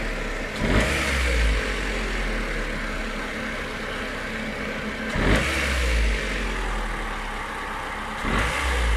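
Nissan four-cylinder petrol engine idling, with the throttle blipped three times: about a second in, in the middle, and near the end. This is a demonstration of the owner's complaint that the engine lacks power and shakes and hesitates when the throttle is opened hard, even after the ignition parts were checked and the fuel pump was replaced.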